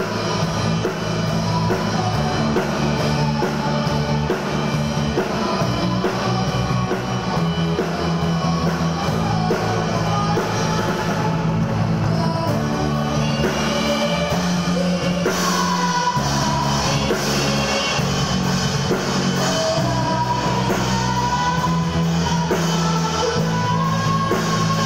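Live amplified rock band playing: drum kit keeping a steady beat under electric guitars and keyboard. A high-pitched girl's voice sings over it in the second half.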